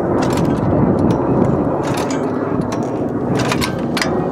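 Scraping and clicking from a small Gamefisher outboard motor's pull-start cord and cowling being worked by hand, in short bursts near the start, about two seconds in and again near the end. Under them runs a steady engine drone.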